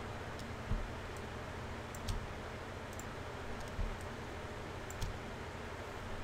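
Scattered computer mouse clicks, about half a dozen short, sharp clicks a second or so apart, over a steady low hiss.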